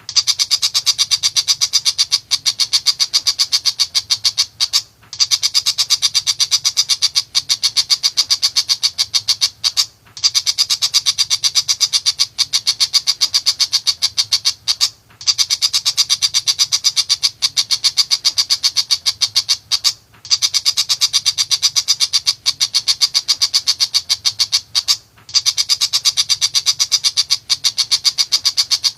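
A shrike singing fast, chattering runs of rapid, evenly spaced high notes, in phrases about five seconds long broken by short pauses, over a faint low hum.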